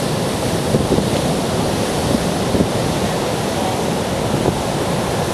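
Heavy hurricane-driven surf breaking and churning continuously, a loud steady wash of waves, with strong wind buffeting the microphone.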